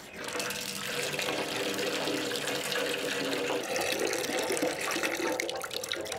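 Tap water running steadily and splashing into a large aluminium basin.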